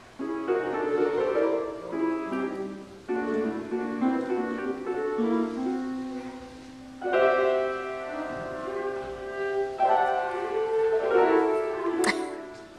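Piano music in a classical style, playing phrases of sustained notes. Near the end there is a brief swish.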